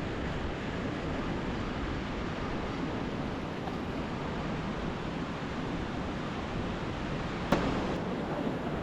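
Lake Superior surf crashing on the shore, with strong wind buffeting the microphone, a steady rushing noise. A single sharp click sounds near the end.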